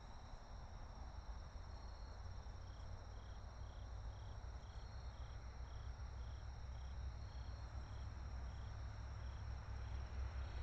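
Insects chirping: one in short chirps about twice a second, starting about three seconds in and stopping near the end, another with a brief higher call every two to three seconds, over a faint steady high tone and a low rumble.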